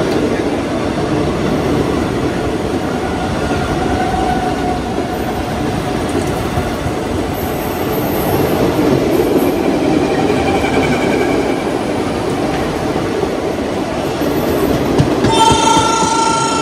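A passenger train passing close alongside on the next track, with a steady rush of wheel and rail noise and clickety-clack. A train horn sounds about fifteen seconds in and is still going at the end.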